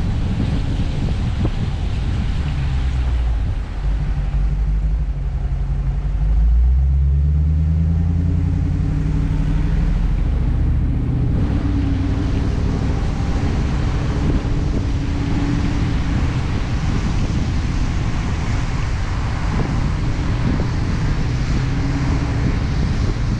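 Dodge Challenger R/T's 5.7-litre HEMI V8 running on the move, its note rising from about four seconds in as the car accelerates and settling again after about eleven seconds. Tyre hiss on the wet road and wind noise run underneath.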